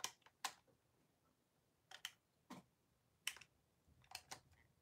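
Faint, scattered clicks and taps of hard plastic Ryusoulger toy parts being handled and fitted together, about eight in all, at irregular spacing.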